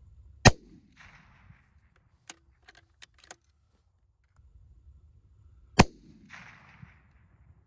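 Two bolt-action rifle shots about five seconds apart, each followed by a short trailing rumble and a brief hiss. A few light clicks come between them.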